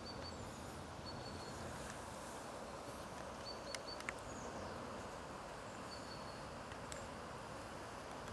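Steady outdoor background hiss with a few short, thin, high calls from small birds scattered through it, and two sharp clicks a little before halfway.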